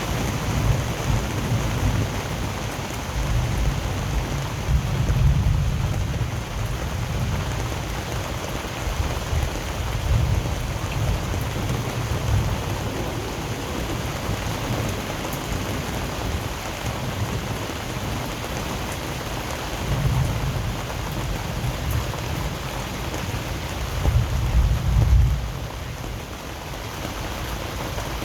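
Steady rain with thunder rumbling low again and again; the loudest rumble comes near the end.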